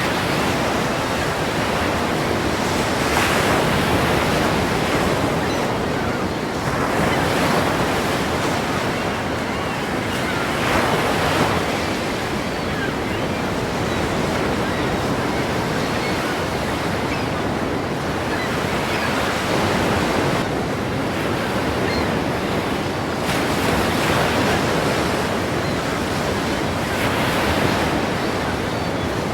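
Ocean surf breaking: a continuous wash of waves, with a wave surging in every few seconds.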